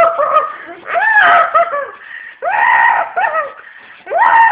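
High-pitched voice shrieking and laughing in repeated bursts, about one every second and a half, each trailing off in quick short cries.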